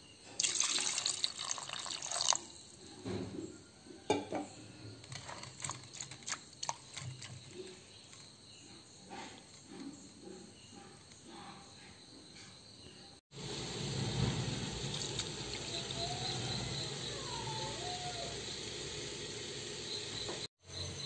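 Water poured into a steel pot of jackfruit pieces and chickpeas, a loud splashing rush lasting about two seconds, followed by scattered small clinks and drips. Later a steady low background noise.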